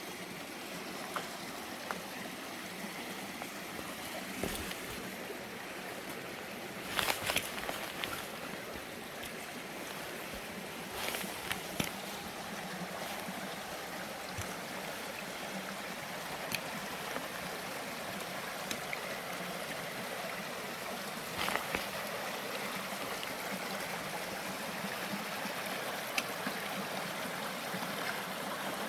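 Creek water rushing steadily over rocks, with a few brief knocks and scuffs scattered through it.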